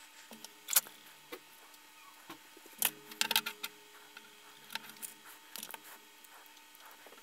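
Hands handling adhesive rubber strips and a 3D-printed plastic PCB vise, peeling tape backing and pressing the strips on: scattered sharp clicks and taps, loudest about a second in and in a quick cluster around three seconds in.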